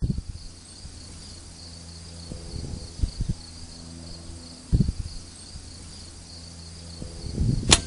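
Crickets chirping in a steady, pulsing high trill, over a low steady hum. Several dull knocks come about three and five seconds in, and a sharp loud crack near the end.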